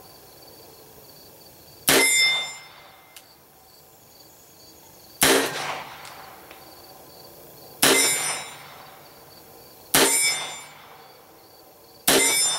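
Five revolver shots from a Webley Mark IV firing .38/200 (.38 S&W) rounds, spaced unevenly about two to three and a half seconds apart, each with a brief metallic ring after the crack.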